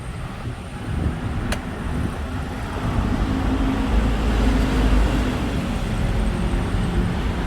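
Busy road traffic, with a vehicle's engine rumble swelling and fading about halfway through.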